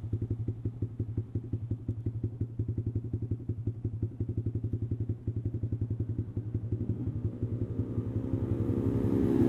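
Yamaha R15 V3's single-cylinder engine idling through an aftermarket exhaust, an even pulse of about ten beats a second. A louder engine sound builds over the last second or two.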